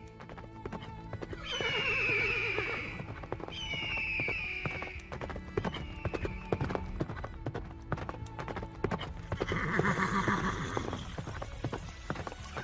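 Horse hooves clip-clopping steadily, with a horse whinnying several times, falling in pitch, in the first half and again about ten seconds in, over background music.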